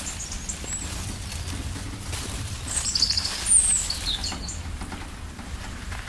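A small songbird chirping, a few short high calls and a quick trill about halfway through, over steady low outdoor background noise.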